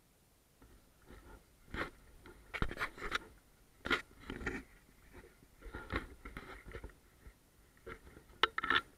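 Footsteps crunching and scraping over rubble and debris on a floor, in an uneven series of steps, the loudest near the end.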